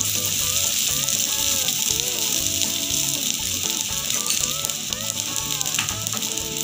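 Oil sizzling steadily around potato-and-rice cutlets shallow-frying on a dosa griddle, with background music playing over it.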